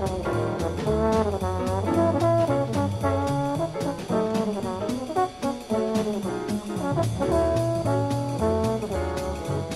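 1964 small-group jazz recording: a brass horn plays a solo melodic line over a bass line and drums, with evenly repeated cymbal strokes.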